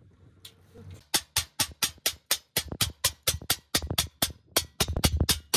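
Hammer blows on a hand-held steel chisel set against the edge of a sheet-metal patch panel, forming its edge: about a second in, a steady run of sharp metallic strikes begins, about four a second.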